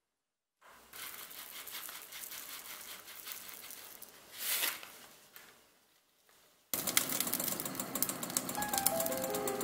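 Dry toppings rustling as chopped nuts are sprinkled and puffed grains are poured from a packet into a yogurt bowl, loudest briefly about halfway through. About two-thirds of the way in, a sudden dense crackle starts: stuffed avocado halves with melted cheese sizzling under the oven broiler.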